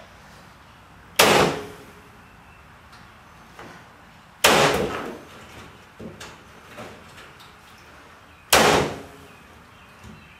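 Corded electric staple gun firing three staples through chicken wire into a wooden frame, each shot a sharp snap with a short ringing tail, roughly three to four seconds apart, with faint clicks of handling between shots.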